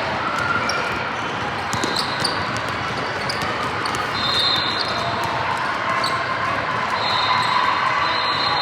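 Basketball game sound in a gym: a ball bouncing on the court amid steady crowd chatter, with a few short high squeaks, likely sneakers, about four seconds in and again near the end.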